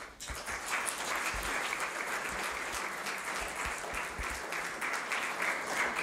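Audience applauding, the clapping starting abruptly and going on steadily.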